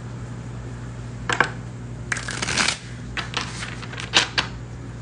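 A deck of cards shuffled by hand: a few sharp taps, a quick flurry of card clicks about two seconds in, then several more taps.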